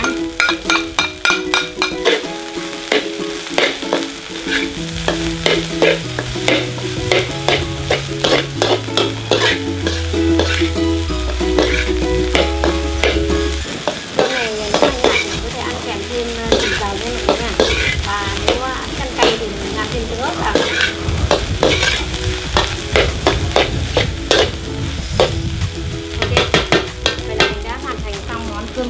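Metal spatula scraping and clinking against a metal wok in quick repeated strokes as egg fried rice is stir-fried, over a continuous sizzle of the rice frying.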